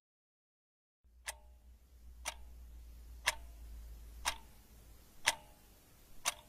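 A clock ticking steadily, about once a second, six ticks starting about a second in, over a faint low hum.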